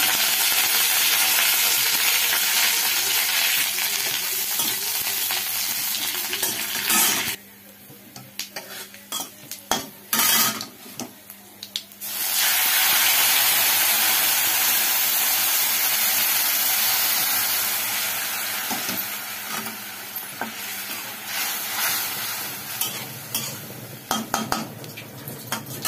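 Hot oil sizzling loudly in a steel kadai as green leaves go into a tempering of garlic and dried red chilli. About a third of the way in the sizzle drops away for a few seconds while a metal spatula clicks and scrapes against the pan. Then a second loud sizzle starts and fades slowly.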